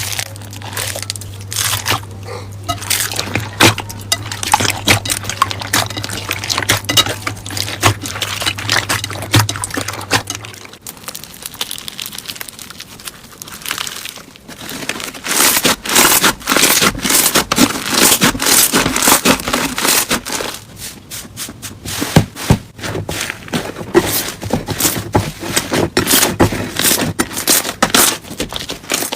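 Slime being squished, stretched and poked by hand, giving a dense run of small wet crackles and pops that eases off for a few seconds about eleven seconds in, then picks up again. A steady low hum sits under the first ten seconds.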